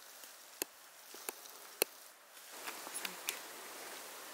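Footsteps on a forest floor: three sharp cracks at an even walking pace in the first two seconds, then rustling through brush and debris with a few lighter clicks.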